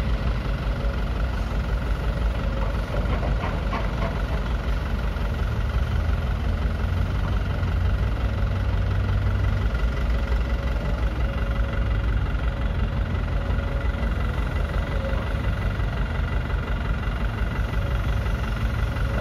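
Diesel engine running steadily with a low, rapidly pulsing clatter.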